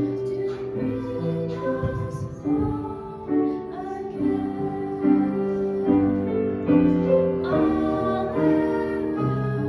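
Voices singing a slow, gentle song to piano accompaniment.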